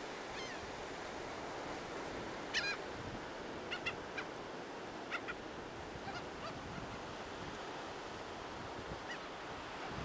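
Gulls calling overhead in short calls, a few at a time, the loudest about two and a half seconds in, over a steady wash of surf and wind.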